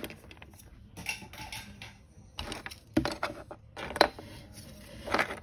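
Small plastic Schleich toy accessories knocking and clattering against each other and a plastic storage box as they are rummaged through, with a few sharp clicks, the loudest about three and four seconds in.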